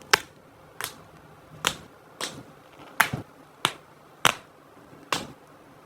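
A series of eight sharp clicks or taps, each short and separate, spaced unevenly at a little under a second apart.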